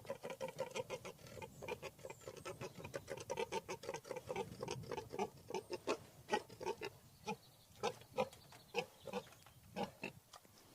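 Pigs grunting: many short grunts, several a second and irregular.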